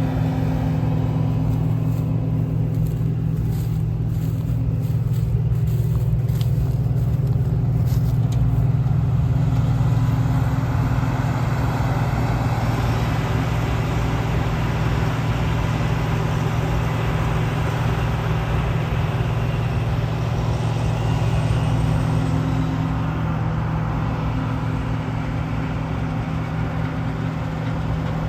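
John Deere 2058 combine harvester running steadily, its engine giving a constant low hum that swells slightly near the middle and eases a little near the end. Faint scattered clicks and rustles come through in the first several seconds.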